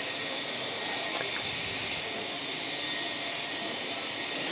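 Oxy-fuel torch flame hissing steadily against a leather welding glove, with a faint steady whistle and a couple of light clicks about a second in.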